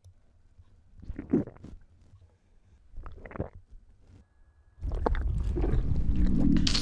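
Stomach gurgling: two short wet squishes, then from about five seconds in a loud, continuous low churning and gurgling.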